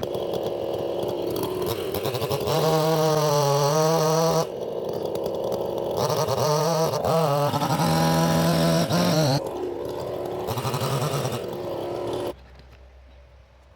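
Chainsaw running under load while cutting, its engine pitch wavering and dipping as the chain bites, in several stretches. It cuts off abruptly near the end.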